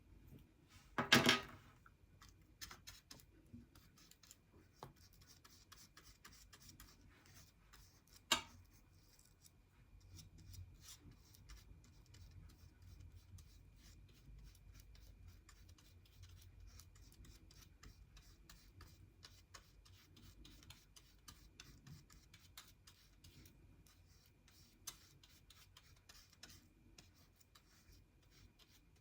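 Paintbrush mixing and dabbing paint to make an orange: faint scratchy rubbing and tapping, with a louder short rustle about a second in and a sharp tap about eight seconds in.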